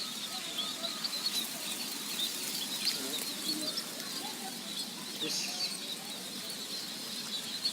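Many small birds chirping continuously, a dense chatter of short high chirps over a steady hiss.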